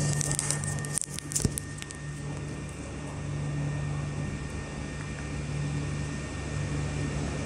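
Projector cooling fan running with a steady hum. A few sharp clicks and rustles from handling come in the first second and a half.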